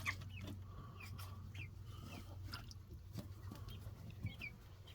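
Chicks peeping now and then: scattered short, high chirps over a steady low hum.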